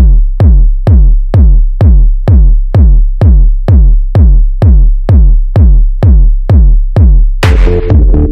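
Techno track opening on a lone drum-machine kick drum in a steady four-on-the-floor beat, about two kicks a second, each dropping in pitch. Near the end a cymbal-like noise wash and sustained synth chords come in.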